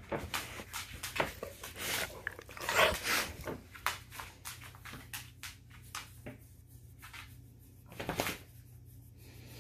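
A hand scratching and rubbing a large dog's coat, with short rustles and soft knocks as the dog shifts and nudges against the desk and chair, busiest in the first few seconds and again briefly near the end.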